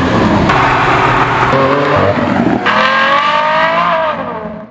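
Lamborghini Aventador SVJ's V12 engine revving hard as the car pulls away. The pitch climbs from about two and a half seconds in and then drops, and the sound fades out near the end.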